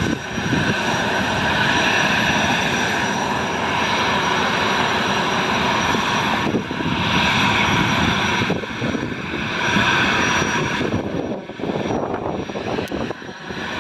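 Jetfoil's gas turbines running with a steady high whine over a rough rushing noise as the boat leaves port, the level dipping and swelling after about eleven seconds.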